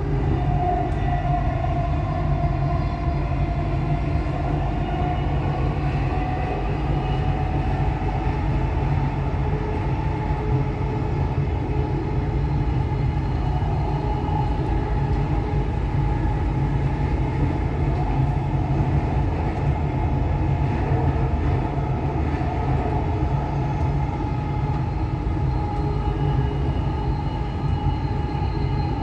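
Dubai Metro Red Line train running at speed on elevated track, heard from inside the car: a steady low rumble with a steady whine over it.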